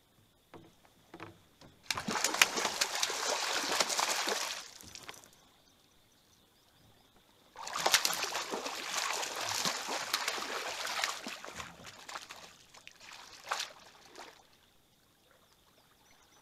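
Water splashing as a hooked fish is fought on a rod beside a kayak: two bursts of about two and three seconds, then a few weaker splashes.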